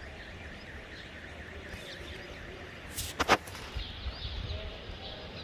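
Steady outdoor background noise with a low rumble, and a short burst of sharp, high bird chirps about three seconds in.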